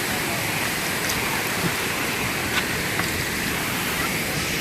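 Steady rush of water falling down a tier of a waterfall, with a couple of faint ticks over it.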